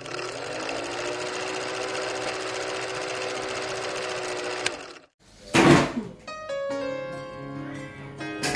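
Film-leader countdown sound effect: an old film projector's steady mechanical whirring rattle for about five seconds. It stops, and after a short gap comes a brief loud burst of noise, then music with held notes.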